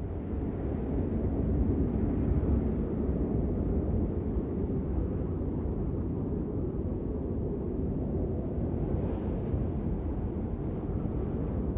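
Deep, steady rumble of a sound-design track for the title sequence. It swells up over the first couple of seconds, then holds with no clear tone or beat.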